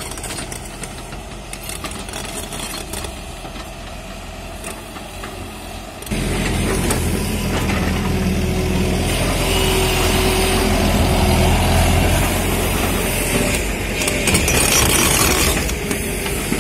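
Diesel engine of a JCB tracked excavator running as the machine digs soil with its bucket. About six seconds in the sound turns suddenly louder and closer, heard from the operator's cab, and a steady whine sits over the engine for several seconds.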